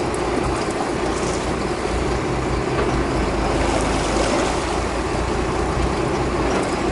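A fishing boat's motor running steadily, under a constant hiss of wind and water.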